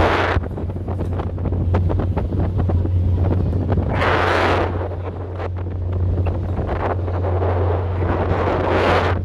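Wind buffeting the microphone aboard a moving car ferry, over a steady low hum from the ferry's engines. The wind rises in two louder gusts, about four seconds in and again near the end.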